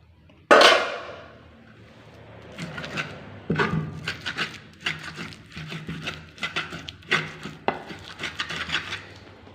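Kitchen work sounds: a sudden loud clatter about half a second in that dies away, then a run of uneven knocks and clinks, like cookware and a wooden board being handled.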